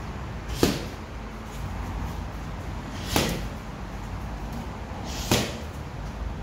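Boxing glove punches landing on a coach's striking pads: three single hard slaps spaced about two and a half seconds apart.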